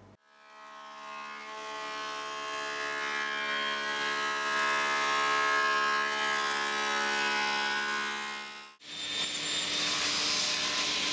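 Thickness planer running on a walnut board, a steady whine of many tones that builds over the first couple of seconds. About nine seconds in it gives way to a table saw ripping a board, a louder even hiss over a low hum.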